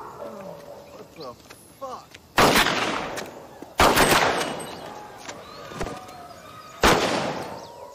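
Three loud handgun shots, each ringing on for about a second: the first about two and a half seconds in, the second a second and a half later, the last about three seconds after that.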